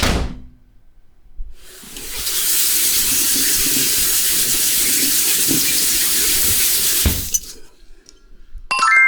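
A sharp hit that rings out briefly, then water running steadily from a tap for about five seconds before cutting off suddenly. Near the end a bright chime-like tone starts.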